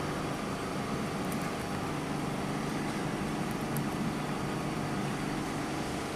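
Steady background rumble with no clear events, with a few faint high ticks.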